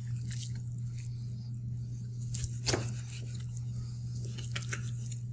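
A chef's knife working through a raw whole chicken on a cutting board: soft scattered cutting and handling sounds with one sharper knock nearly three seconds in, over a steady low hum.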